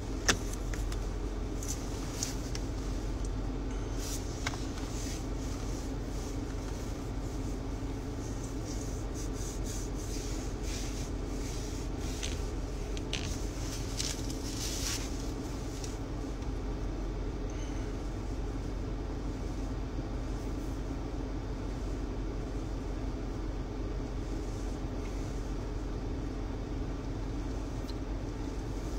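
Steady low running hum of a patrol car heard from inside its cabin, with scattered light clicks and rustles during the first half.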